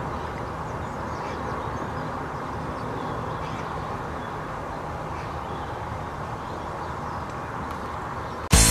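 Airbus A350-941's Rolls-Royce Trent XWB jet engines, a steady distant rumble as the airliner passes overhead on approach with its landing gear down, with faint bird calls over it. Loud guitar music cuts in abruptly near the end.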